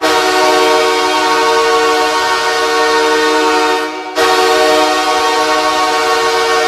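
Los Angeles Kings arena goal horn, two long blasts of a low, steady chord of several tones: the first lasts about four seconds, then after a brief break the second blast starts and holds.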